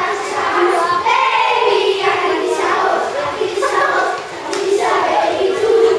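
A group of children singing together, with several notes held long, and a few faint claps in the middle.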